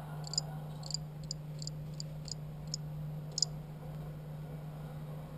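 Feeder crickets chirping: short, high chirps two or three a second that stop about three and a half seconds in, over a steady low hum.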